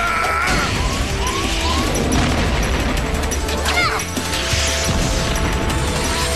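Action-cartoon soundtrack: dramatic music mixed with crash and sci-fi sound effects, with short rising swooshes about a second in and a sharper sweeping zap just before the middle.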